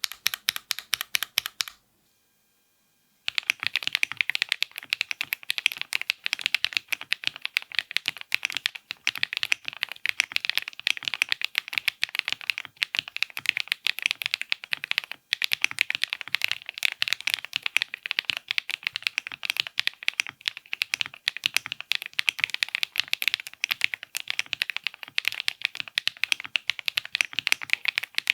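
Fast, continuous typing on a mechanical keyboard for a switch sound test: a dense run of key clacks that stops briefly about two seconds in, then resumes without a break.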